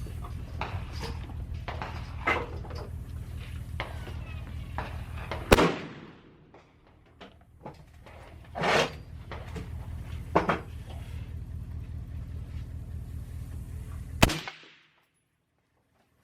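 Gunshots at an indoor shooting range: a few separate shots, the sharpest about five seconds in and near the end, with softer ones between, over a steady low hum. All sound cuts off suddenly near the end.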